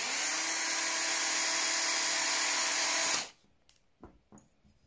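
Battery drill's motor driving a rivet adapter: it spins up and runs at a steady whine for about three seconds, then stops sharply. A few light clicks follow.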